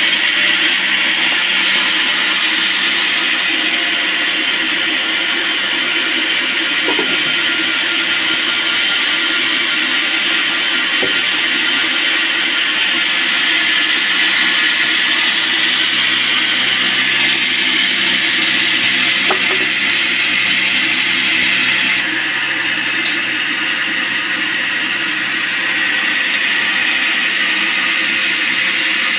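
Band sawmill running with its blade cutting through a log: a loud, steady whine and rushing noise that changes slightly about three quarters of the way through.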